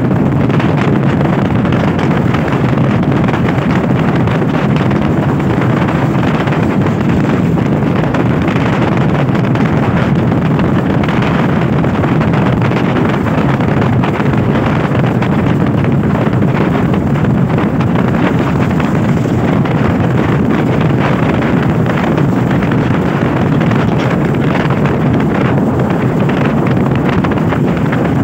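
Steady wind noise rushing over the microphone of a camera on a motorcycle moving at road speed, with the bike's running noise underneath.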